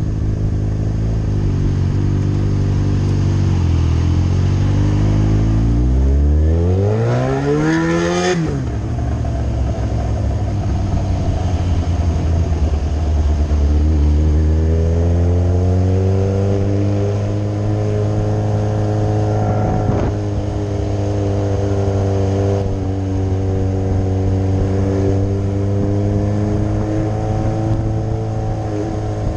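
Yamaha R6's inline-four engine under way: it revs up steeply to a high pitch, cuts off sharply about eight seconds in, then settles to steady cruising, the pitch climbing gently and holding.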